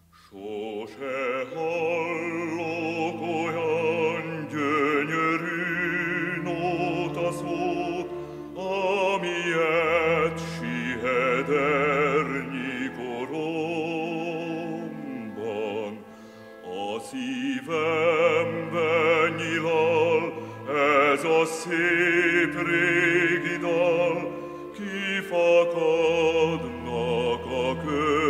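Classical music with an operatic voice singing long held notes with heavy vibrato over a low sustained accompaniment, pausing briefly about halfway through.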